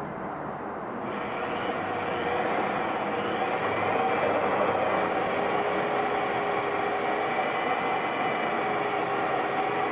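Electric drill running steadily, its bit grinding an indentation into a glass jar wetted with a drop of oil; it grows louder about a second in.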